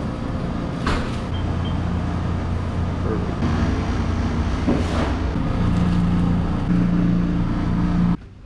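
Steady low machine hum with a couple of sharp clicks, about one second in and again near the middle; the hum cuts off suddenly near the end.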